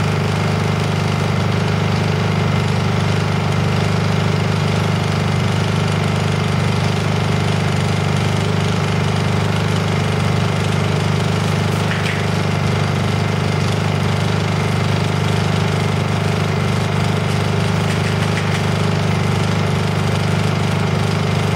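Honda EU2000 inverter generator's small single-cylinder four-stroke engine running at a steady, even speed in eco mode.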